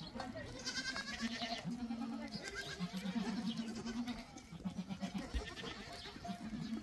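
Herd livestock bleating: a string of drawn-out, wavering calls, several of them overlapping.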